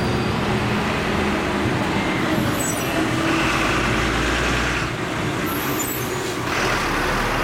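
A motor vehicle engine running amid road traffic noise, a low rumble that steps up about three seconds in and again near the end.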